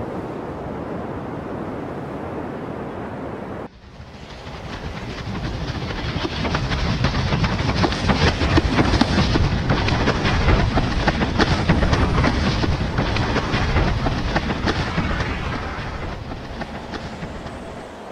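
Wind buffeting the microphone over the rush of breaking surf. It cuts off abruptly a little under four seconds in, then builds back up loud and gusty.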